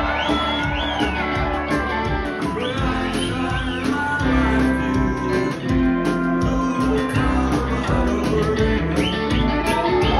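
Live rock band playing, with electric guitars and drums; a high lead line bends up and down in pitch over the band.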